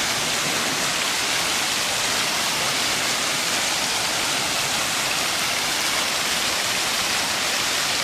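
Large indoor ornamental fountain, water splashing and pouring steadily into its basin.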